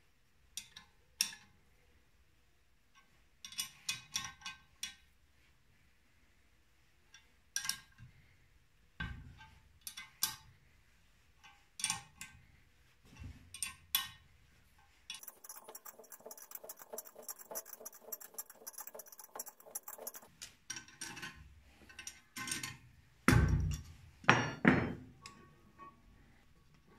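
Steel hand tools and metal parts clinking and knocking on a Mercedes-Benz OM615 diesel cylinder head. Scattered sharp clinks give way in the middle to a few seconds of rapid, fine clicking, and the loudest, duller knocks come near the end.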